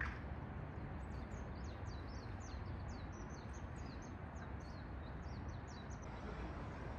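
Small birds chirping: a rapid series of short, high, falling chirps, about four a second, that stop shortly before the end, over a steady low background rumble.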